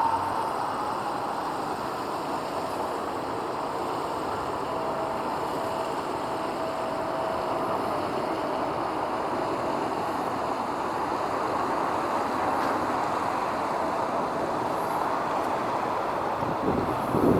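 Steady roar of distant jet aircraft noise around the airport, settling just after a louder passage fades at the start.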